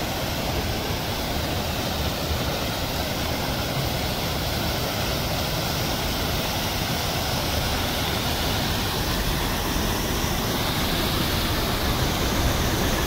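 River water pouring over low concrete weirs, a steady rushing.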